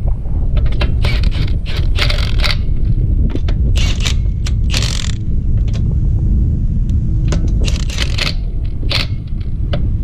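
Cordless impact wrench run in short bursts, spinning the wheel's lug nuts down snug, with the socket clinking and scraping on the nuts between bursts, over a steady low rumble.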